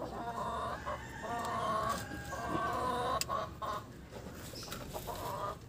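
Chickens calling: a series of drawn-out clucking calls, each lasting about a second, with a sharp click about three seconds in.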